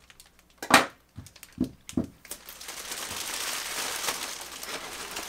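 Bubble-wrap packaging being handled and unwrapped: a few sharp crackles in the first two seconds, then steady crinkling and rustling.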